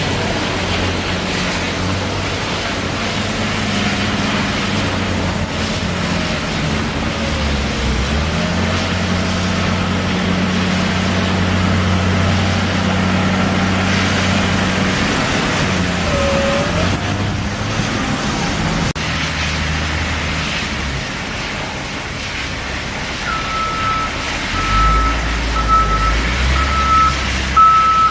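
Doosan excavator's diesel engine running steadily. Near the end its travel/reversing alarm starts beeping about once a second, and a deeper rumble rises as the machine moves.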